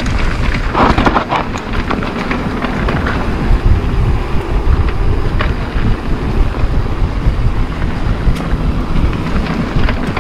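An electric mountain bike riding over a bumpy dirt singletrack: a steady rumble with rattling and clattering as the tires go over the bumps.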